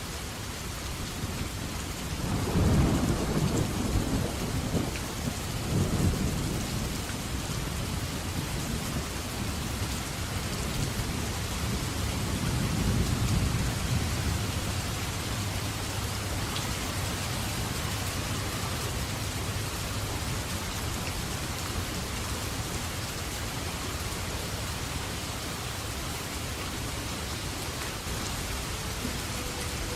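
Steady rain falling, with thunder rumbling low about two seconds in and rolling on for several seconds, then a weaker roll of thunder around the middle.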